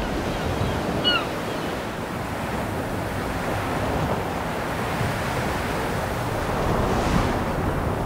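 Steady wash of sea surf and waves with wind. A short high chirp comes about a second in, and the surf swells slightly near the end.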